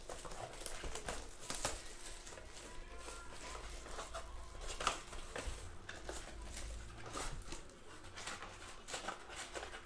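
Plastic shrink wrap being slit and peeled off a cardboard trading-card box, then the box opened and foil packs pulled out: scattered crinkling, rustling and small taps.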